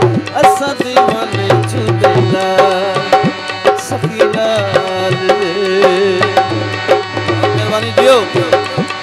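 Instrumental passage of a Punjabi Sufi devotional song. Tabla and dholak play a fast, busy rhythm under a harmonium melody.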